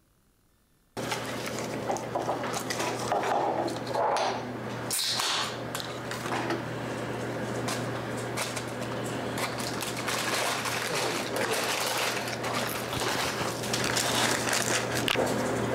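Paper fast-food wrappers rustling and crinkling as food is unwrapped and handled, a dense crackle of small sharp ticks that starts suddenly about a second in, over a steady low hum.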